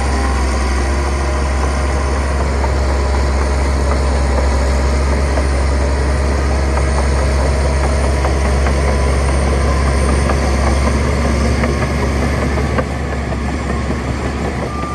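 Heavy diesel engine of earth-moving machinery running steadily, its sound mostly a deep low hum with a broad noisy layer above.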